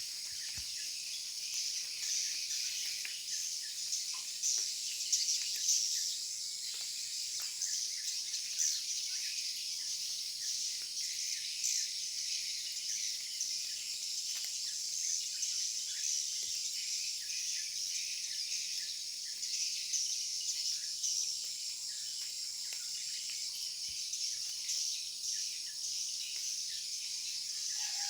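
Swiftlets twittering in a swiftlet house: a dense, continuous chatter of many overlapping high, short chirps, with a faint steady high tone beneath. The birds are calling on their own, with the house's lure-call speakers switched off.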